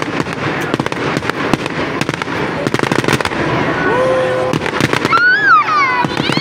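Aerial fireworks exploding and crackling in rapid, dense volleys, thickest in the first three seconds. Crowd voices call out over them, with long cries in the second half.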